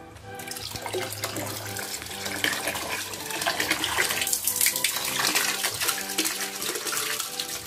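Water from a Rosston SP-2600 submersible aquarium pump gushing out of its corrugated outlet hose, splashing onto tiles and into a basin of water. The splashing starts about half a second in and then runs steadily.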